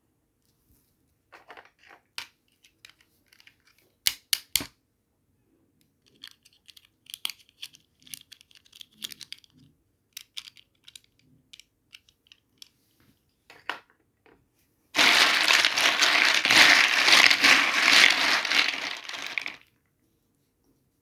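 Packaging being handled during a toy unboxing: scattered crinkles and clicks, a few sharp clicks about four seconds in, then a loud continuous crinkling or tearing of packaging lasting about four seconds from about fifteen seconds in.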